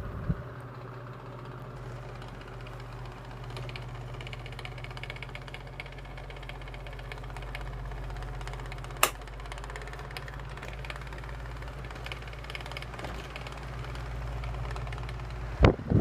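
1985 Tozai 12-inch table fan running steadily, its motor humming under the even rush of air. A single sharp click comes about nine seconds in, and a louder knock just before the end.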